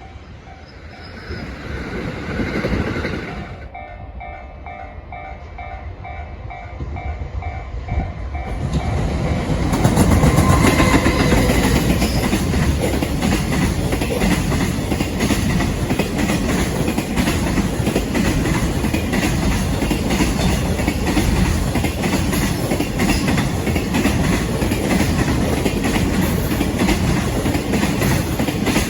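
Freight train passing close by, its wheels clattering rhythmically over the rail joints with a heavy rumble that starts about nine seconds in. Before it arrives, a pulsing, repeating ringing tone sounds for several seconds.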